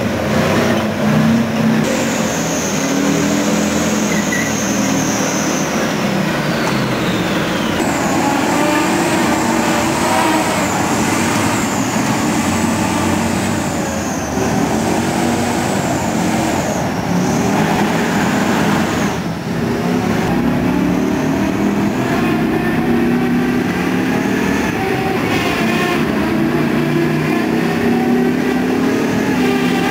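AFV-55 tracked armoured vehicle driving hard: its diesel engine runs loud and steady, with tracks and running gear rattling. A high whine comes in a couple of seconds in, slides down in pitch, returns, and drops away about two-thirds of the way through.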